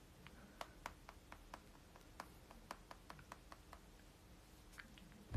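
Faint light clicks and taps of fingers handling a smartphone, about three or four a second, stopping about four seconds in, with two more shortly before the end, against near silence.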